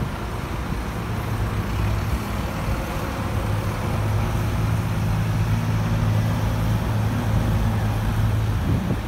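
Diesel engine of a red Routemaster double-decker bus running as it draws near and passes, a steady low hum that grows a little louder over the second half, over general road traffic noise.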